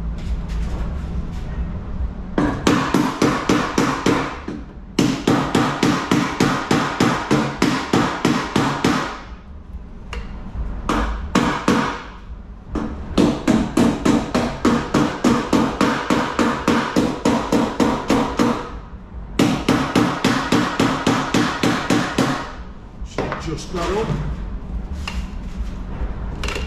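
Hand hammer rapidly tapping on the Mini's sheet-steel wing panel, about five ringing blows a second in runs of a few seconds with short pauses between. The panel edges are being knocked in so the metal touches with no gap before welding.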